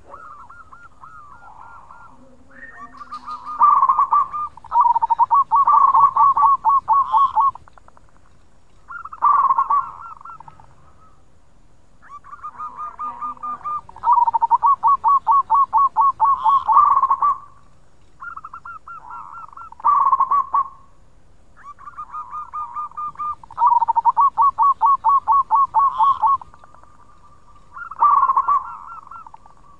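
Zebra dove (local perkutut) cooing in its 'khong' voice: about seven phrases in turn, each a quick run of rapid trilled notes that swells to a louder, fuller rolling coo, with short pauses between.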